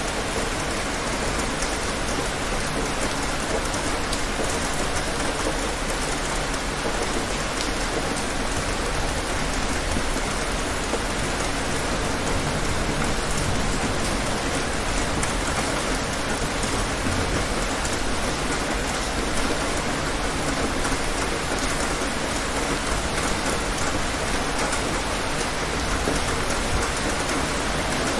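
Steady rain: an even, dense hiss of falling drops that runs on without a break.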